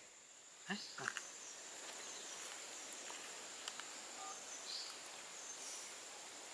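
Faint steady background hiss with two brief soft sounds about a second in, and a single short mobile-phone keypad beep about four seconds in as a number is dialled.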